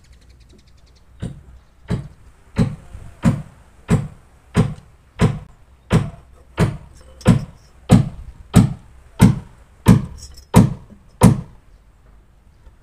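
Steady hammer blows, about sixteen at an even pace of roughly three every two seconds. The first two are lighter, then the blows come harder, and they stop near the end.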